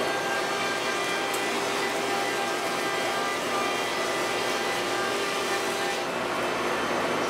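CAMaster CNC router with its spindle running and a surfacing bit planing across wooden boards, with the vacuum dust collection drawing through the dust shoe. The sound is a steady rushing noise with a faint constant whine.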